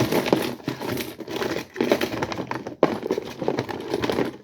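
Rummaging and rustling as a pile of small silicone mini pop-it fidget toys is taken out and handled, a dense jumble of crinkling and small knocks that stops suddenly near the end.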